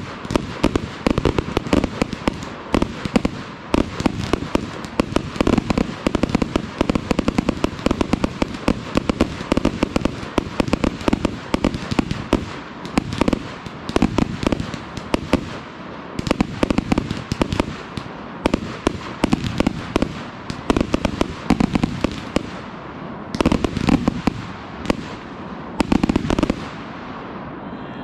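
Consumer fireworks going off in a dense barrage of rapid, overlapping bangs and crackle, which stops abruptly near the end.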